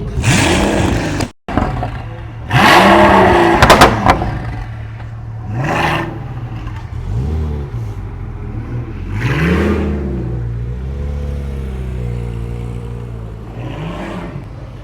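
Pagani Huayra's twin-turbo V12 being revved in about five short blips, each rising and falling in pitch with a loud rushing hiss, and idling between them. The longest, loudest rev comes a few seconds in.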